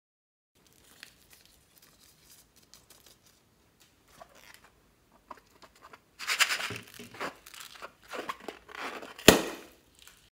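Rubber balloon handled and squeezed between the fingers, faint at first and then crinkling and rubbing more loudly from about six seconds in, followed about nine seconds in by one sharp snip of scissors cutting into the balloon.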